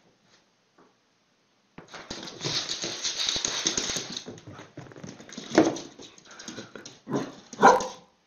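Small dog reacting to a citrus wedge held at its face: about two seconds of noisy scuffling, then short sharp yelps, the loudest near the end.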